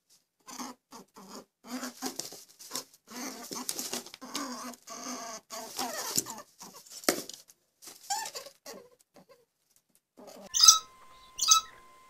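Rabbit making a fast, irregular run of short squeaks and grunts. About ten seconds in, a different, louder sound of sharp high calls takes over, likely a bird.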